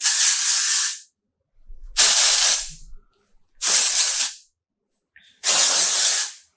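Aerosol spray can hissing in four separate bursts of about a second each, sprayed onto hair that is oily a day after washing.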